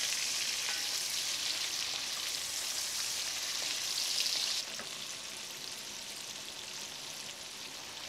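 Diced vegetables and sliced sausage sizzling in butter and olive oil in a cast iron pot as a wooden spatula stirs them: a steady frying hiss that turns quieter about halfway through.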